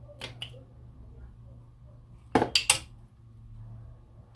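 Metal tools clinking on a brake-pipe flaring tool as it is tightened up: a few light clicks, then three sharp metallic clinks about halfway through.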